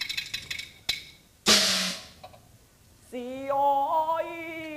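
Chinese opera percussion: a quick cluster of ringing metallic strikes, a single click, then a loud crash about a second and a half in. From about three seconds in, a long held sung note.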